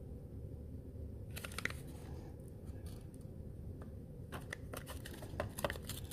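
Small cardboard cosmetic box and packaging being handled by fingers: a few soft clicks and rustles about a second and a half in, then a longer run of them from about four to six seconds in, over a low steady hum.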